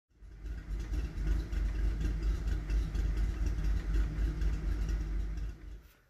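Car engine idling with a steady low rumble. It fades in over the first second and cuts off just before the end.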